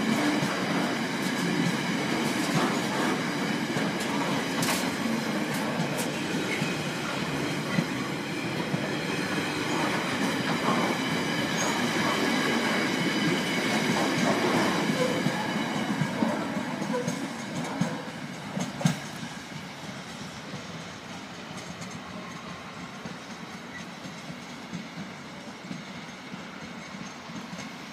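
Intermodal container wagons of a Class 66-hauled freight train rolling past, steady rail rumble with wheels knocking over rail joints. The noise dies away about two-thirds of the way through as the last wagon passes.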